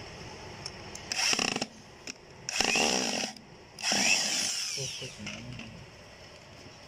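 Corded electric drill driving a screw into a board in three short bursts, each a second or less, the last one slowing as the screw seats.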